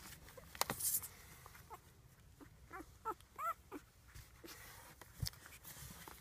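Five-day-old rough collie puppies squeaking: a cluster of short, high, rising-and-falling cries around the middle. Crisp rustling and knocks from handling on the bedding come about a second in.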